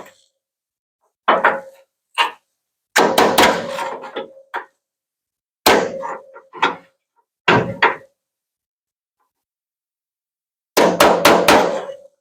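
Body hammer striking a truck-bed sheet-metal panel to knock down a dent's high ridge while the low spot is pushed out from behind, each blow leaving a short metallic ring. Single blows and short runs come spaced by pauses, ending in a quick run of about five strikes.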